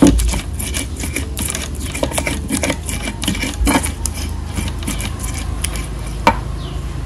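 Stone pestle (ulekan) grinding and tapping chilies in a stone mortar (cobek): a rapid run of scraping clicks, about four a second, with one louder knock about six seconds in, as the chilies are crushed into a wet red paste.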